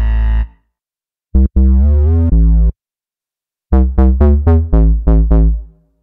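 reFX Nexus 4 synth bass presets from the Festival EDM 2 expansion, each auditioned with a short keyboard phrase and separated by silence. One phrase dies away in the first half-second. A second, with sliding pitches, runs from about a second and a half to nearly three seconds. A third, of quick repeated notes, starts around four seconds and fades out near the end.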